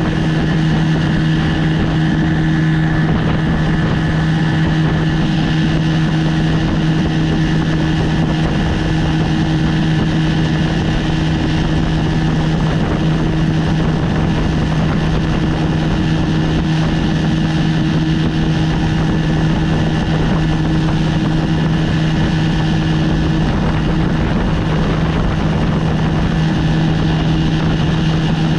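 1973 Johnson 20 hp two-cylinder two-stroke outboard motor running steadily at one even pitch, pushing a small boat across the water.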